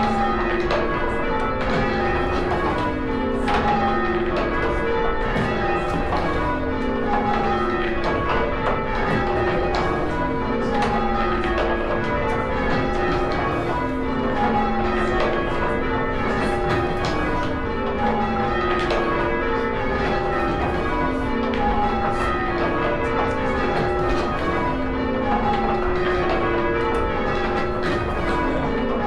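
A ring of six church bells being rung in sequence, each bell struck in turn. The rows of strikes step down in pitch from the highest bell to the lowest, one row roughly every two seconds.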